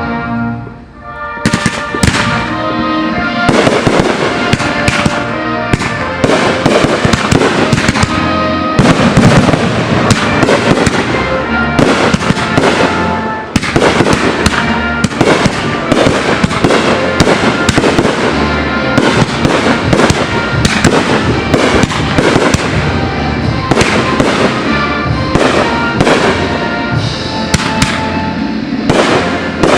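A fireworks display: rapid, dense firework bursts, several a second, starting about two seconds in and running on without a break, over music with sustained tones.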